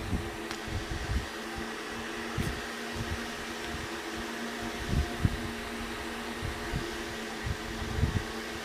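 A steady motor hum with hiss, like a running fan, with a few soft low thumps scattered through it.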